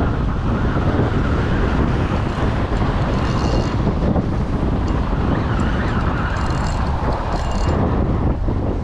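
Wind buffeting the microphone in a steady heavy rumble, over small waves washing and splashing against shoreline rocks.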